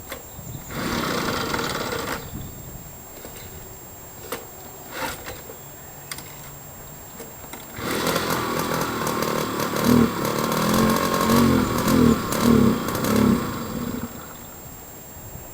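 Old motorcycle engine on a cold start attempt: a short try about a second in lasts about a second and a half. From about eight seconds in the engine fires unevenly for about six seconds, its pitch rising and falling, then stops.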